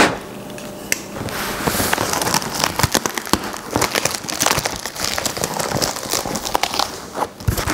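Taped cardboard shipping box being torn open by hand: packing tape ripping and cardboard crackling and crinkling in dense, irregular bursts, starting about a second in.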